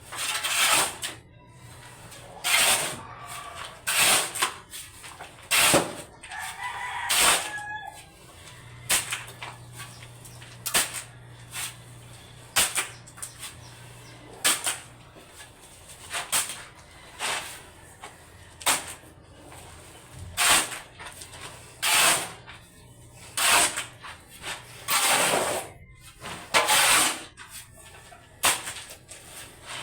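Repeated rough scraping strokes of a hand tool working building material, coming about once every one and a half to two seconds.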